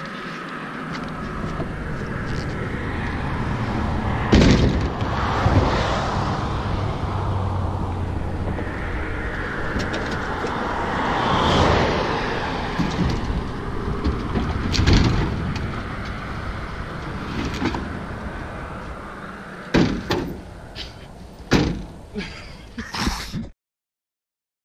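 Highway traffic passing close by, its tyre and engine noise swelling and fading as each vehicle goes past. Over it come sharp knocks and bangs as a plastic round boat and gear are heaved into a pickup truck's bed, several in quick succession near the end.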